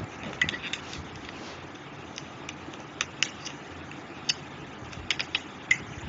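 Small sharp clicks and scrapes of a thin metal tool against a plastic lipstick tube as the lipstick is dug out, about a dozen irregular clicks over a steady hiss.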